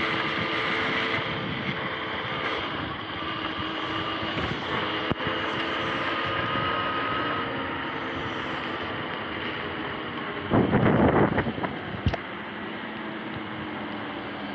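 Sur-Ron X electric dirt bike under way, its motor whining in steady tones that drift slightly in pitch, over tyre hiss on the wet path and wind on the microphone. About ten seconds in, a louder rushing burst lasts about a second, followed by a single sharp click.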